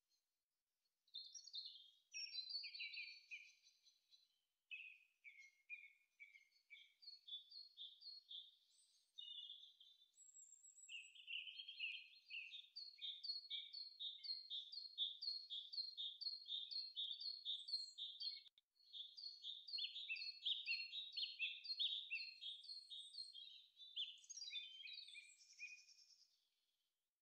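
A small bird singing high chirping phrases that become a long fast run of repeated notes, then break off near the end.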